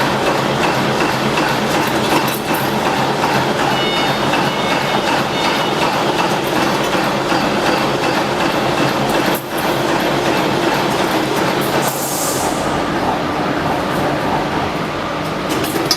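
Automatic fan-guard ring forming machine running, with steady, dense mechanical noise throughout and a short hiss about twelve seconds in.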